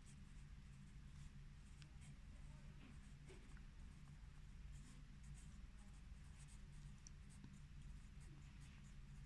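Pencil writing on squared notebook paper: faint scratching strokes and small ticks as a line of handwriting is written.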